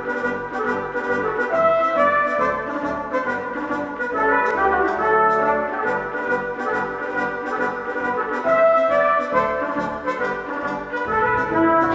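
Instrumental intro music: a brass melody over a steady beat.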